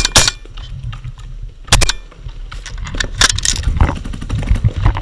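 Paintball markers firing: two quick pops at the start, two more just under two seconds in, and a rapid cluster a little past three seconds, over a steady low rumble.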